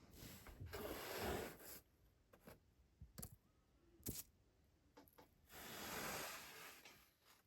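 Kinetic sand being cut: two long, faint swishes, one at the start and one near the end, with a few short taps between them.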